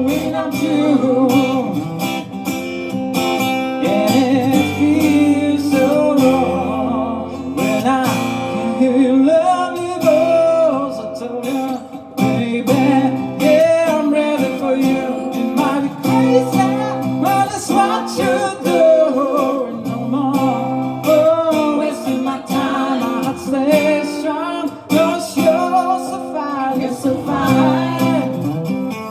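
Live song performance: an acoustic guitar strummed under a voice singing a melody.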